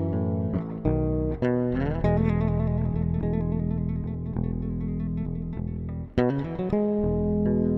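Background music led by guitar over a steady bass line, with plucked and strummed notes.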